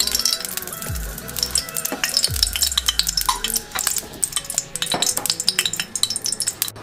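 Cooking oil crackling and spitting as it heats in a metal kadhai, a dense stream of small pops, with a few deep thuds in the first half.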